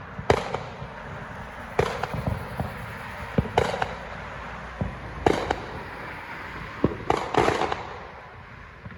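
Fireworks going off around the neighbourhood: a series of sharp bangs at uneven intervals, each trailing off in an echo, about every second or two, with a quick cluster near the end.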